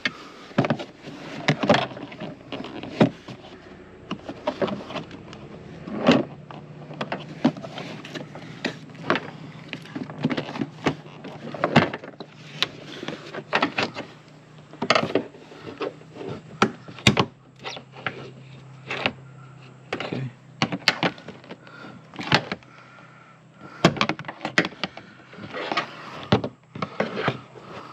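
Irregular knocks, clicks and rustles of hands working in a car's interior, moving the floor mat and handling plastic trim panels, over a steady low hum.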